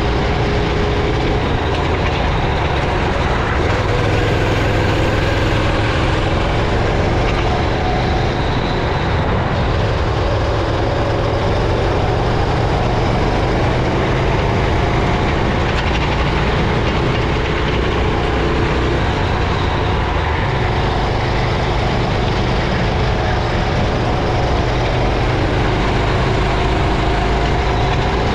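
Racing kart engine running hard on board, its pitch rising and falling in slow sweeps as the kart speeds up and slows through the corners.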